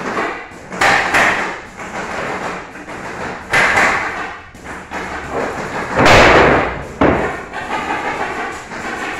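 Pneumatic nail gun firing nails into a pine bed-base frame: a handful of sharp shots a second or more apart, each with a short puff of air, mixed with knocks of the wood frame being handled.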